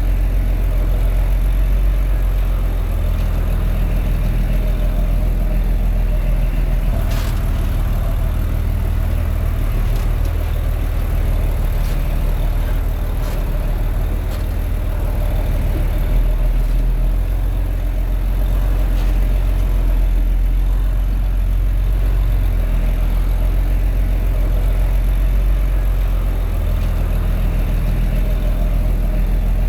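Komatsu D21A bulldozer's diesel engine running steadily, with a few brief sharp clanks now and then.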